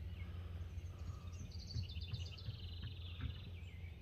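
A songbird singing a rapid trill of high notes that slides downward in pitch, starting about a second and a half in and lasting under two seconds, over a steady low background rumble.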